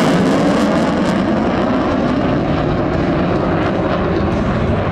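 McDonnell Douglas F-15C Eagle's twin Pratt & Whitney F100 turbofans in afterburner, a loud, steady jet roar from a deep rumble up into a hiss.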